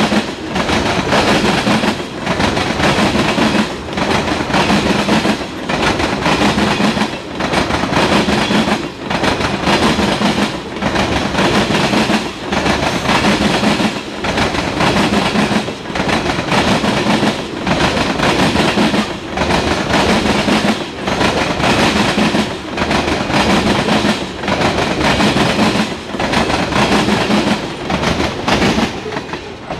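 Freight train of ethanol tank cars rolling past close by: a loud, continuous rumble and clatter of steel wheels on rail, with a regular clickety-clack beat as the wheels cross rail joints.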